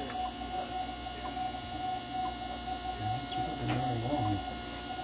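Steady electrical hum with a constant high tone from running WWII vacuum-tube shipboard radio equipment, with a few faint clicks.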